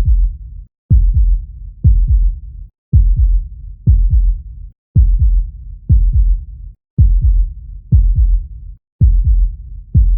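Human heartbeat sound: a low double beat (lub-dub) repeating steadily about once a second.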